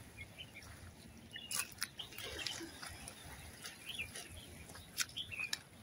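Faint animal calls: short, high chirps scattered through, with a few sharp clicks among them.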